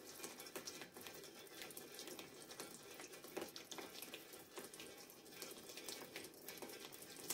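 Kitchen tap running faintly, a thin stream of water splashing onto a melon in a stainless-steel sink.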